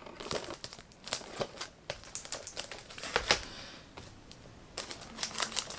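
Steelbook Blu-ray cases being handled and shuffled along a shelf: an irregular run of sharp clicks and taps as the cases knock against one another, with a quick cluster of taps near the end.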